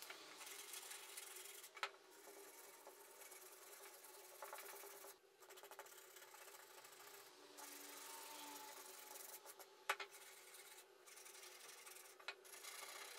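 Sandpaper rubbed by hand over a wooden board, a faint scratchy rasp in strokes with short pauses. A few sharp knocks break in, the loudest about ten seconds in, as the board is handled.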